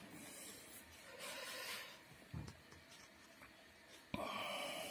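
Faint handling noise of a circuit board being turned close to the microphone: soft rubbing and hiss, a light knock about two and a half seconds in, and a louder hiss that starts suddenly near the end.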